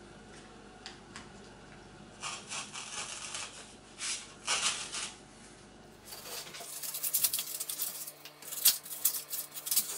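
Craft knife scoring and cutting into foil-faced insulation foam board: scratchy scraping strokes from about two seconds in, becoming a denser, louder run of crackling cuts in the second half as a piece of foam is cut and pried out.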